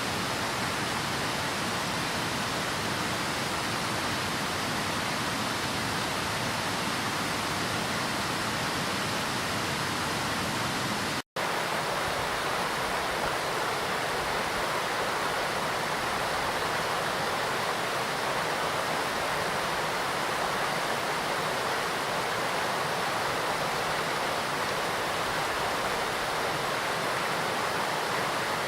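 A large, high-volume waterfall and its river rushing, a steady, unbroken roar of falling water. It cuts out for an instant about eleven seconds in, then resumes unchanged.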